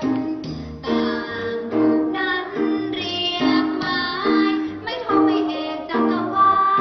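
A children's song about the Thai tone marks: singing in Thai over an instrumental accompaniment.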